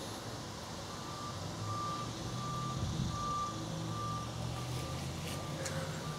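A vehicle's backup alarm beeping steadily, about one beep every three-quarters of a second, over the low hum of its engine running.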